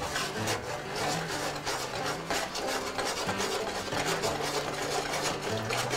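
Mushrooms and minced garlic sizzling in brandy in a stainless steel saucepan on the stove: a steady hiss with small crackles.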